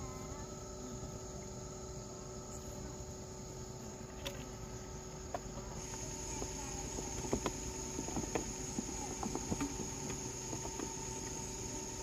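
Steady chorus of insects chirring outdoors, with a high continuous tone. From about halfway, scattered soft clicks and taps sound over it.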